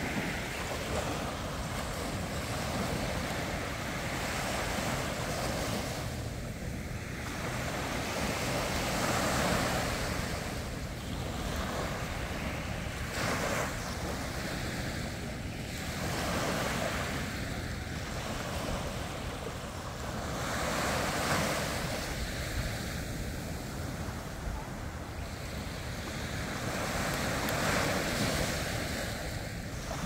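Small waves breaking and washing up on a sandy beach, the wash swelling and easing every few seconds.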